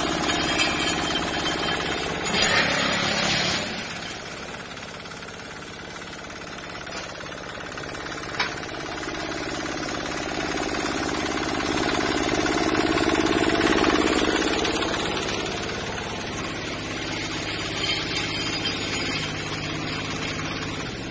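Small single-cylinder diesel engine running a mobile hollow concrete block making machine, with the machine's vibration underneath. It is louder at first, drops about four seconds in, then swells and eases again, with one sharp knock about eight seconds in.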